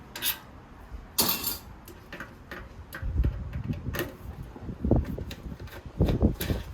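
Scattered sharp clicks and taps of metal parts being handled as the fan is worked loose from the NAS's sheet-metal case. From about halfway through, wind rumbles on the microphone.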